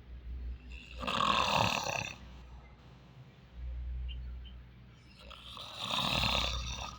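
A sleeping person snoring: two long snores, each about a second and more, about four and a half seconds apart, with a quieter breath between them.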